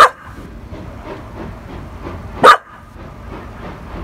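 A Labradoodle barks twice, once at the start and once about two and a half seconds in, at a steam train. The train runs steadily in the background.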